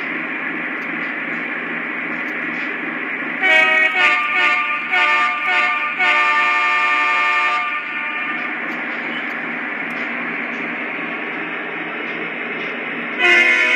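Lionel ES44AC model locomotive's onboard sound system playing a steady GE diesel engine rumble through its small speaker. About three and a half seconds in it sounds four horn blasts, the last one the longest, and another horn blast starts near the end.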